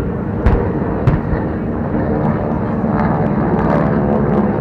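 Propeller warbirds with radial engines droning in the air-raid reenactment, the engine pitch bending as one passes about three seconds in. Two sharp thumps come in the first second.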